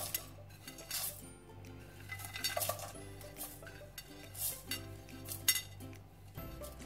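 Whole spices, among them cumin seeds and star anise, brushed off a plate into a nonstick frying pan, clattering and clinking onto the pan in a handful of separate short spills, the loudest about two and a half and five and a half seconds in. Steady background music plays under it.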